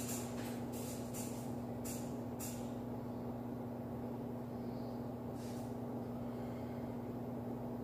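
A steady low machine hum, with several short hissing bursts in the first two and a half seconds and one more about five and a half seconds in.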